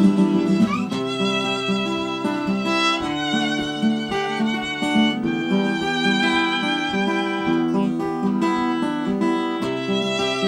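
Violin playing a melody with vibrato over acoustic guitar chords, without singing: an instrumental passage at the end of a song.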